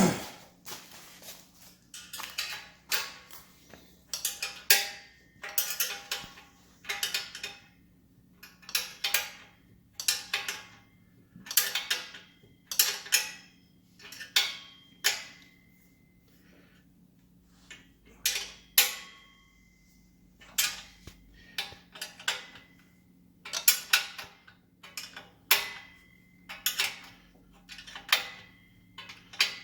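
Hand wrench working on motorcycle exhaust fasteners: repeated sharp metallic clicks and clinks in small clusters about once a second, some ringing briefly, with a few short pauses.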